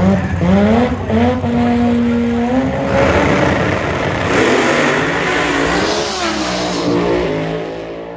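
Two drag-race cars revving at the starting line and holding their engines at steady, stepped speeds. About three seconds in they launch at full throttle, and the engine noise runs hard down the strip before fading as the cars pull away.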